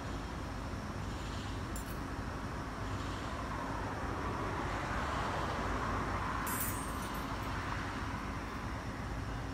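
Steady road traffic noise, with a vehicle passing that swells and fades about five to seven seconds in.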